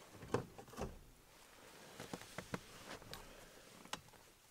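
A handful of light, irregular knocks and taps from a person shifting about in an aluminum jon boat, against a faint outdoor background.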